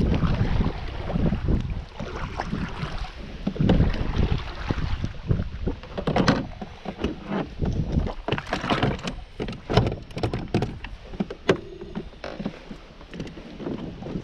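Hobie pedal kayak being paddled off a sandy shore, with water splashing against the hull, then a run of plastic knocks and clicks as the pedal drive is dropped into its well and locked in. Wind buffets the microphone.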